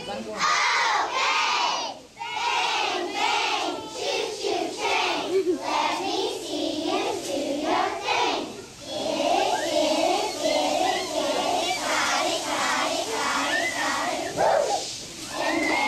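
A large group of young girls chanting a cheer in unison, in loud shouted phrases with a couple of short breaks.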